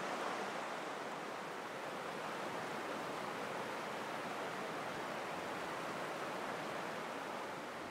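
Steady, even rushing noise outdoors, with no distinct events, consistent with flowing water or wind.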